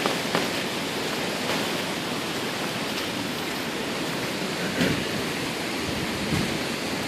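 Flooded creek rushing in a steady noise of fast-moving high water.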